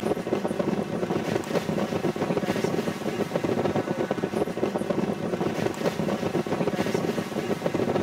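A car driving on a road: steady, fluttering road and wind noise, with no distinct engine tone.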